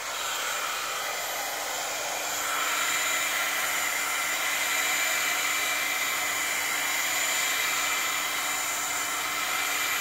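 Embossing heat gun running steadily, blowing hot air over a wet acrylic pour: a constant fan whir with a steady hum and whine through it, getting a little louder a couple of seconds in.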